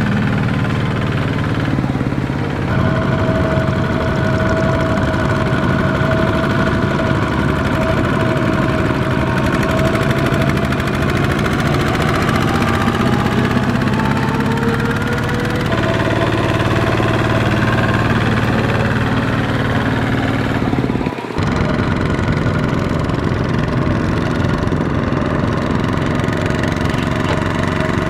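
Single-cylinder diesel engines of two-wheel walking tractors running steadily under load as they haul trailers through mud, with the engine note rising slowly partway through.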